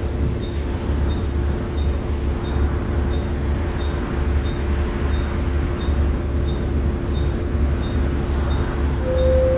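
Bus engine running with a steady low, pulsing drone and a constant hum, heard from on board. A faint regular ticking comes about one and a half times a second, and a brief whining tone sounds near the end.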